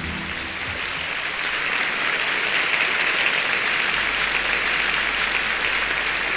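Audience applauding: many hands clapping steadily after a song ends.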